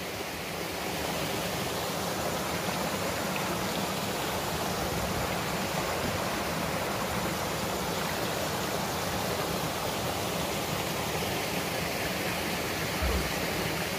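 Steady rushing of a fast-flowing, shallow stream of turbid water.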